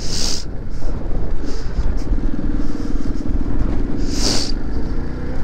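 Small 110 cc single-cylinder four-stroke motorcycle engine running steadily at low speed as the bike rolls along, with two brief hissing gusts, one near the start and one about four seconds in.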